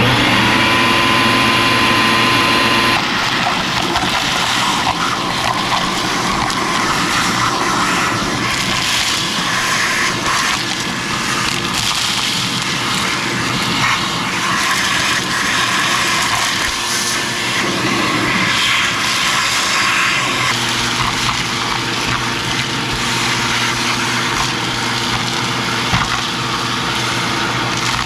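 Diesel engine of a Kubota U55-4 mini excavator running, with dense mechanical and hydraulic noise over it. The sound shifts abruptly about three seconds in and again about twenty seconds in.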